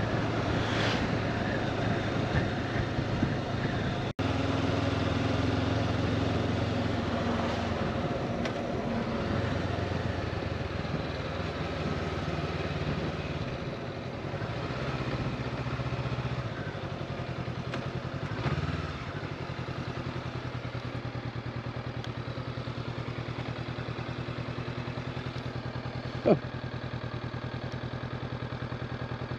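Honda CB500X's parallel-twin engine running under way, its note stepping up and down as the rider changes throttle and gears.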